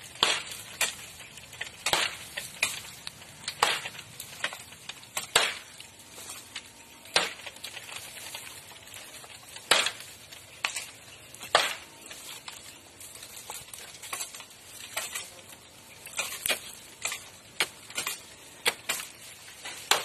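Bamboo grass being cut by hand with a blade: irregular sharp slashing strokes, roughly one or two a second and sometimes in quick pairs, over a constant rustling noise between them.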